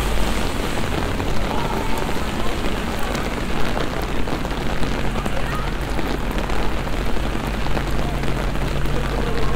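Heavy rain falling steadily on wet paving stones, a dense, even patter of drops, with a faint steady low hum underneath.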